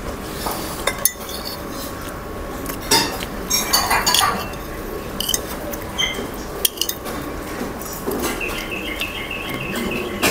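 Metal spoon scraping and clinking against a bowl while someone eats, with a few sharp clinks spread through.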